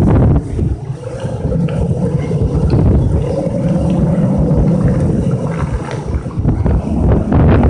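Typhoon wind gusting against the microphone, a loud low rumble that swells and dips.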